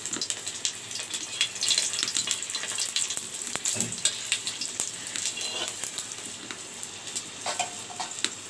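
Cumin seeds, chopped onion and dried red chillies sizzling and crackling in hot oil in a black iron kadhai, stirred with a metal spoon. The frying hiss is steady, with many small pops.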